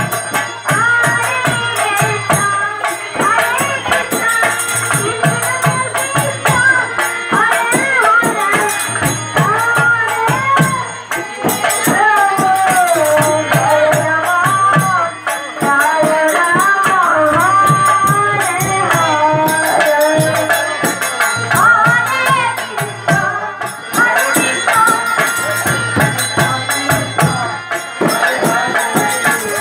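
Devotional kirtan singing: a solo voice carries a gliding, ornamented melody over steady hand-drum strokes and ringing cymbals.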